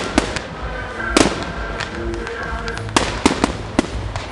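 Fireworks finale: aerial shells and comets bursting in sharp bangs, one very loud about a second in, then a quicker run of bangs near the end.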